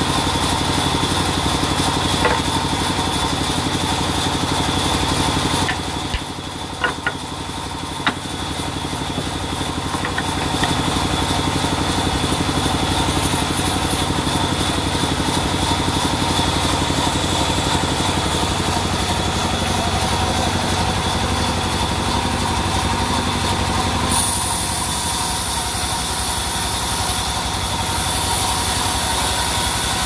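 Large sawmill band saw running steadily with its blade cutting lengthwise through a log. About six seconds in the running briefly drops and a few sharp knocks sound, and near the end the hissing of the cut grows brighter.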